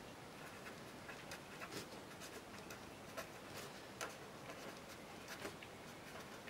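Felt-tip pen writing on paper: faint, irregular little scratches and taps as the letters are formed, over a low hiss.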